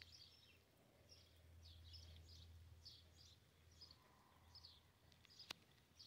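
Near silence: faint birds chirping, short high chirps about two or three a second, over a low steady hum, with a single sharp click about five and a half seconds in.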